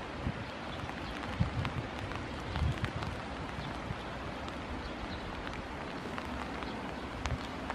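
Steady rain falling: an even hiss sprinkled with small drop ticks. A few low thumps stand out above it, about a second and a half in and again near three seconds.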